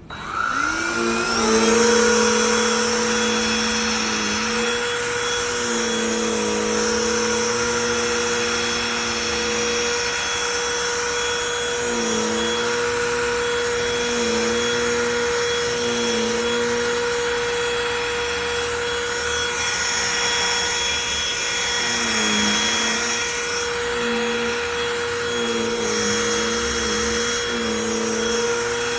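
Cordless handheld vacuum switched on: the motor spins up with a rising whine, then runs steadily, with lower tones that come and go and waver as the nozzle works the surface.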